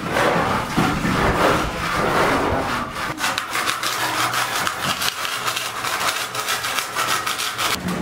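Hand saw cutting through a wooden plank with quick, regular back-and-forth strokes, most distinct from about three seconds in.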